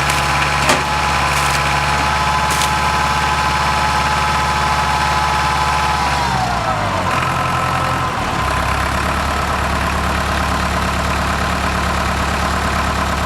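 Tow-behind concrete pump's engine running steadily, with a few sharp knocks in the first few seconds. About six seconds in, its pitch falls and it settles at a lower speed, running steadily to the end.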